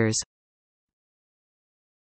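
The last word of a spoken English sentence cuts off about a quarter second in, followed by complete digital silence.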